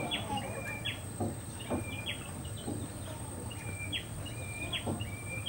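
A bird calling over and over: each call is a short level whistle that flicks sharply upward at its end, given several times, sometimes in quick pairs.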